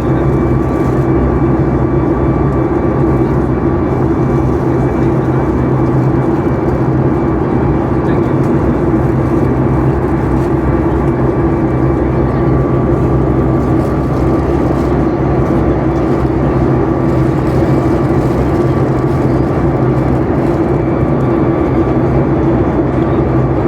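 Airplane cabin noise in flight: a steady rush of air and drone of the engines, with a faint, even whine held on one pitch.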